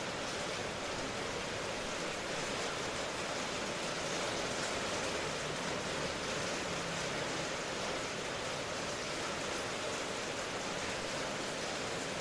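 Steady rain falling, an even hiss-like wash with no separate drops or thunder standing out.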